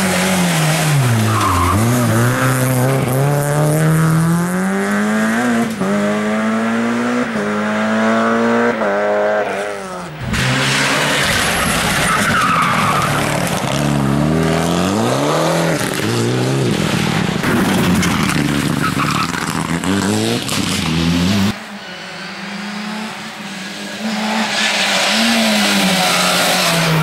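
Rally cars driven hard on a special stage: engines revving up and dropping back again and again through gear changes and braking, with tyres squealing. The sound cuts abruptly to another car about a third of the way in and again about two-thirds in.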